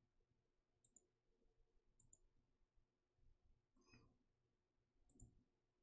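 Near silence broken by a few faint computer mouse clicks as points are placed in a drawing program.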